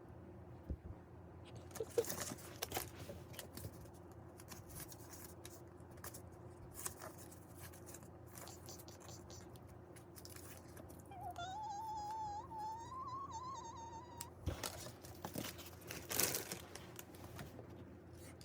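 Packaging being handled and opened: paper and plastic crinkling and tearing, with scattered clicks and taps. About eleven seconds in, a wavering high tone sounds for about three seconds.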